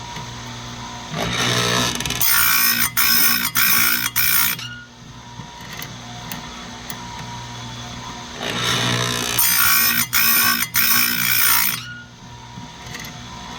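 Chainsaw chain grinder's abrasive wheel running, with two grinding passes on the chain's cutter teeth, each lasting about three seconds and briefly broken a few times. The motor hums steadily between them.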